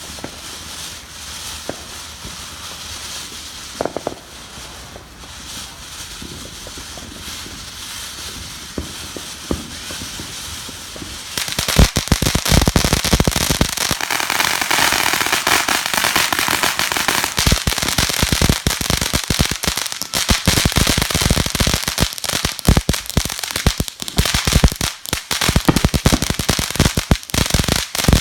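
Fireworks: a steady hiss with a few scattered pops, then about 11 seconds in a long, dense run of rapid firecracker cracks begins and keeps popping to the end.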